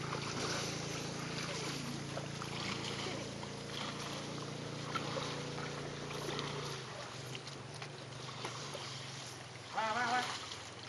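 Water sloshing and splashing in a shallow river as elephants are bathed and scrubbed, over a steady low hum that cuts out about two-thirds of the way through. A short high-pitched call comes near the end.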